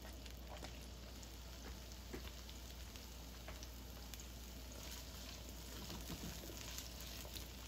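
Chopped onions sizzling softly in hot oil in a nonstick wok, stirred with a spatula near the end.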